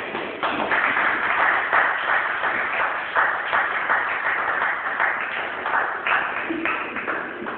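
A small group of people applauding, steady hand-clapping that tails off near the end.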